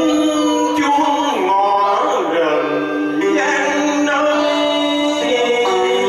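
Vietnamese cải lương song: a man singing into a microphone over instrumental accompaniment, with long held notes stepping from pitch to pitch.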